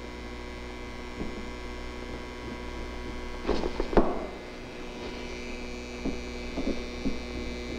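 Steady electrical mains hum, with a few scattered clicks and pops, the loudest cluster a little past the middle.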